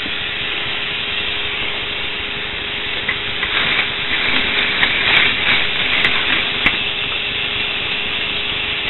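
K'nex roller coaster's battery-powered chain lift motor running with a faint steady whine under a constant hiss, with a few light plastic clicks about three to seven seconds in.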